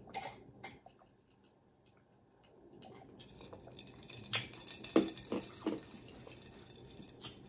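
A person drinking from a glass: a couple of short sips and swallows right at the start, then a few soft mouth and swallowing sounds about halfway through.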